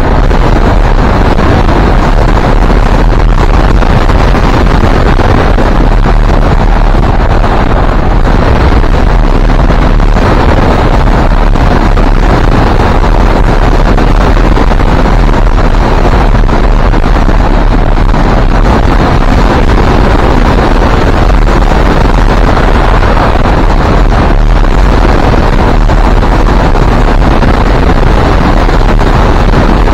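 Wind buffeting the microphone, loud and steady, with the most weight in the deep low end.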